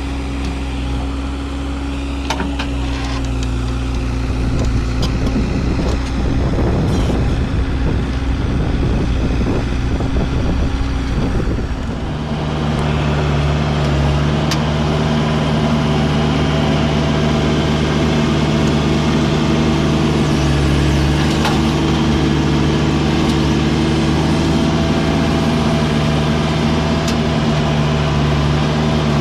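Heavy diesel engine running steadily, its note shifting to a different steady pitch about twelve seconds in, with a few sharp knocks scattered through.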